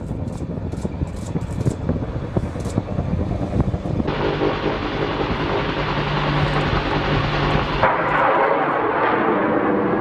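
Bell AH-1 Super Cobra attack helicopters flying, their rotor blades beating steadily. The sound shifts abruptly about four and again about eight seconds in.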